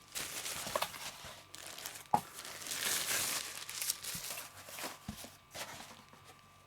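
Packaging being handled by hand: wrapping crinkling and rustling, loudest around the middle, with a couple of light knocks, as the flashlight is unwrapped from its box.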